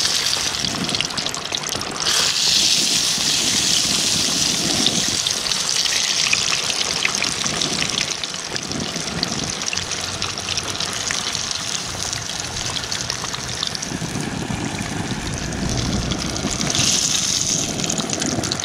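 White perch deep-frying in hot grease: a steady sizzle with fine crackling, swelling about two seconds in and again near the end.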